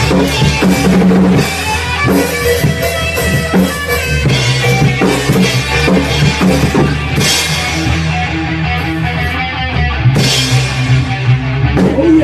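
Live rock band playing: a drum kit with kick drum and cymbal crashes, electric guitar and bass guitar together.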